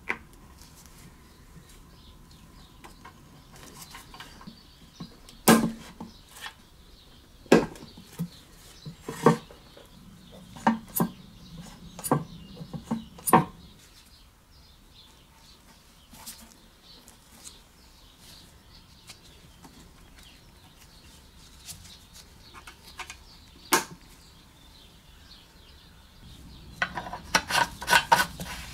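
Small metal carburetor and fuel-tank parts being handled and set down on a hard surface: scattered sharp clicks and knocks, with a quick run of clicks near the end.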